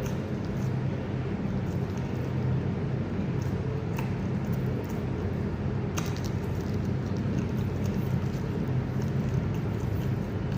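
Steady low hum, with two faint clicks about four and six seconds in.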